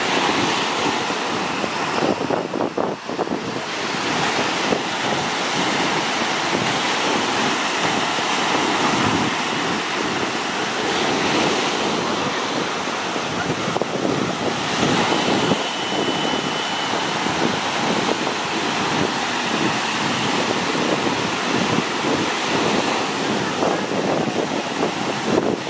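Sea surf breaking and washing up the beach in a continuous rush, with wind buffeting the microphone.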